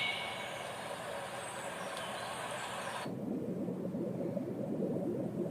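Soundtrack of a demo video playing through the iPad Pro's built-in speakers: a rushing noise that cuts off sharply about three seconds in, giving way to a lower rumble.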